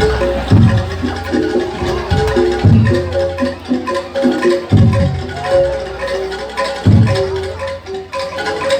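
Live gamelan ensemble playing jaranan music: metal-keyed mallet instruments ring out a repeating melody over a deep, heavy stroke that lands about every two seconds.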